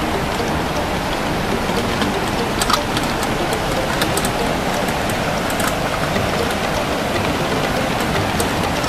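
Steady rush of a fast-flowing river, with a few faint small clicks over it.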